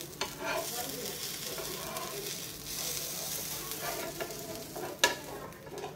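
Pomfret fish sizzling in oil in a flat frying pan while a metal spatula scrapes under the pieces to lift them out, with a single sharp clink of the spatula about five seconds in.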